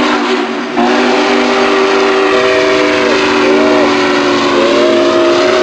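Steam locomotive whistle blowing a long multi-note chord over the hiss and rumble of a running train. A little past halfway the upper notes sag and drop out, come back briefly, then slide back up and hold.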